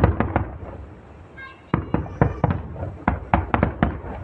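Aerial fireworks shells bursting in quick succession: a few bangs at the start, a short lull, then a denser run of bangs from about halfway through to near the end.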